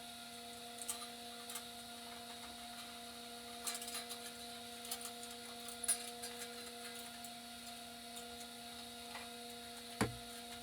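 Steady low electrical hum, with a few faint scattered clicks and one louder click near the end.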